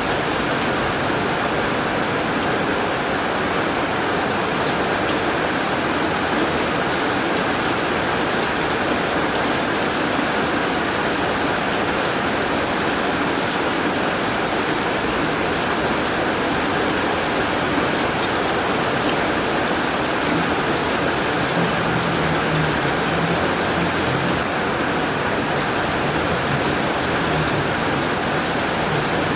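Heavy rain falling steadily on a tin roof: a dense, even hiss dotted with sharp ticks of drops striking the metal.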